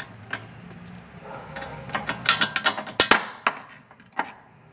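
Hand tools clicking and clinking on steel while the lower nut of a Honda Fit's front stabilizer link is undone, an Allen key holding the stud against a 14 mm wrench. It is a scatter of sharp metallic clicks and knocks, thickest in the middle, some with a brief ring.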